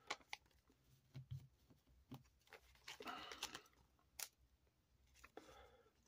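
Faint plastic rustling and small ticks as trading cards are slid into thin plastic penny sleeves, in scattered short bursts.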